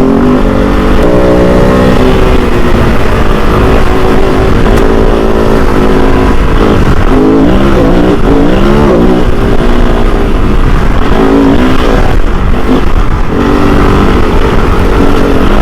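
Kove 450 Rally's single-cylinder engine running under way, its pitch steady at first and then rising and falling repeatedly as the throttle is worked, over a heavy low rumble.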